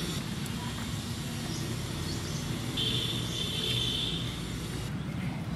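Outdoor background noise: a steady low rumble, with a brief high-pitched buzz about three seconds in.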